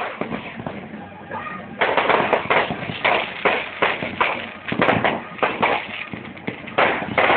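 Fireworks going off: one sharp bang, then from about two seconds in a rapid run of bangs and crackles, several a second.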